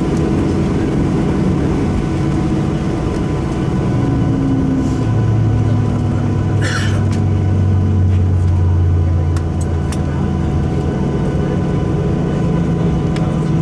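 Cabin noise inside a Boeing 737-800 taxiing after landing: its CFM56 engines run at low taxi power as a steady drone. A deeper hum swells a little in the middle, and there is a brief hiss about seven seconds in.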